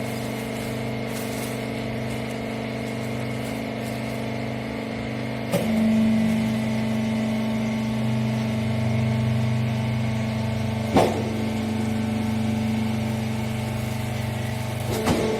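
Hydraulic power unit of a horizontal rags baling press running with a steady hum. About five and a half seconds in there is a knock as the hum shifts in pitch and grows louder. Sharp clunks follow about eleven seconds in and again near the end.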